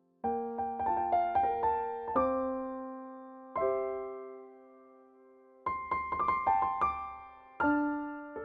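Background music: a slow electric-piano melody, phrases of a few struck notes that ring and fade between them.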